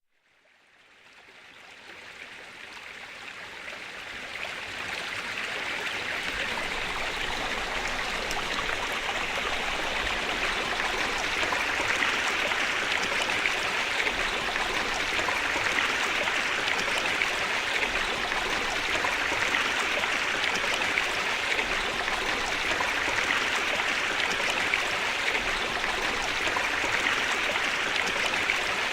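Waterfall: a steady rush of falling water that fades in over the first several seconds and then holds steady.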